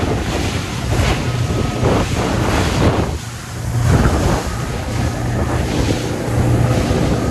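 A fibreglass fishing boat running fast through choppy sea: heavy wind buffeting the microphone and the rush of water and spray, over the steady low drone of its Mercury outboard motor.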